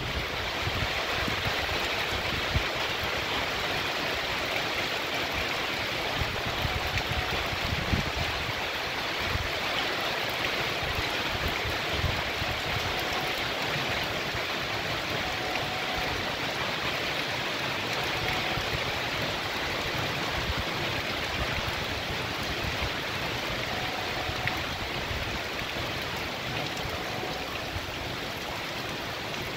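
Heavy rain pouring steadily onto a paved street, with runoff water running along the surface.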